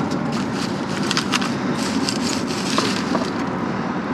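Trash being rummaged through by hand: repeated short clatters, rustles and crackles of items being moved, over a steady low rumble.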